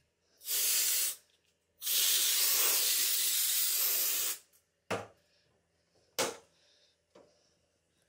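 Aerosol spray can hissing in two bursts at a dehumidifier's filter grille, a short burst and then a longer one of about two and a half seconds, followed by two brief knocks.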